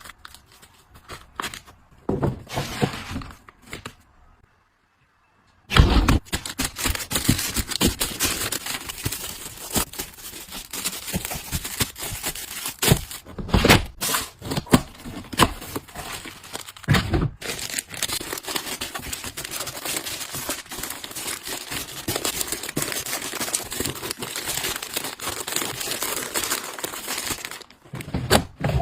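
Packaging being crinkled and torn: dense, continuous crackling and rustling with many sharp clicks and knocks. It starts suddenly after a brief dead silence about five seconds in, with only a few scattered clicks before that.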